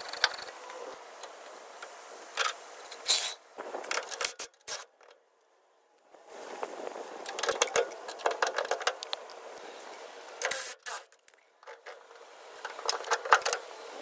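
Floor jack being pumped, then steel jack stands scraped and set under the rear axle: scattered sharp metallic clicks and knocks, a break of near silence about five seconds in, then a longer stretch of scraping with more clicks.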